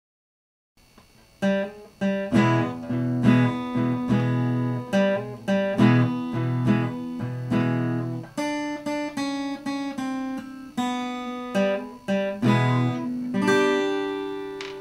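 Acoustic guitar music, plucked and strummed, starting about a second in after complete silence.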